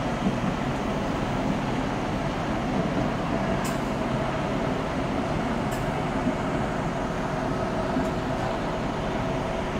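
Diesel double-decker coach engine idling steadily, with a low rumble and faint steady hum, under a large concrete bus-station roof. Two short sharp clicks come about four and six seconds in.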